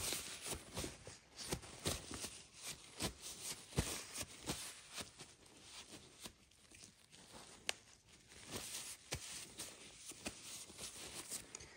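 Greasy work gloves being wiped off: faint, irregular rustling and crinkling with scattered small clicks.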